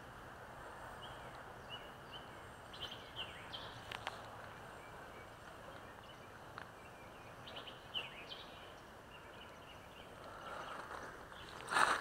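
Faint outdoor ambience: a steady hiss with scattered short bird chirps, and a louder rustling scrape near the end.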